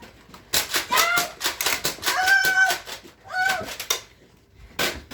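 High-pitched children's voices shouting and squealing in short bursts, with a sharp click near the end.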